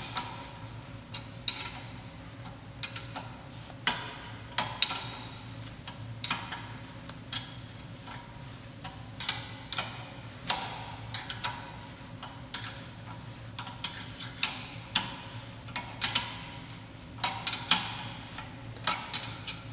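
Irregular sharp metallic clicks and clinks of wrenches working the guide-pin bolts of a rear brake caliper, some in quick clusters, several with a short ring.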